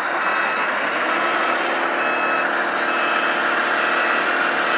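Reversing beeper on a radio-controlled scale truck's sound module, beeping steadily over and over: the warning that the truck is backing up.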